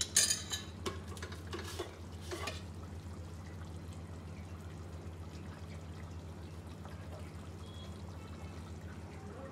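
A few knocks of a metal ladle against an aluminium pressure cooker in the first couple of seconds, then the watery keema curry simmering in the open cooker over a steady low hum.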